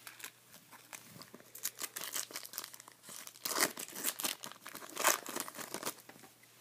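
Foil trading-card pack being torn open and crinkled in the hands: a dense, irregular crackle that grows louder about three and a half seconds in.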